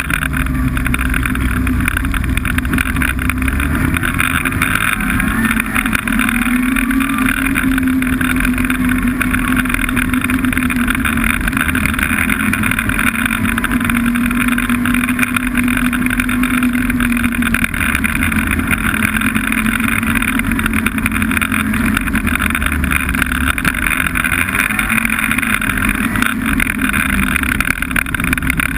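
Snowmobile engine running under way, a steady drone whose pitch rises a few seconds in, holds, and eases back down partway through.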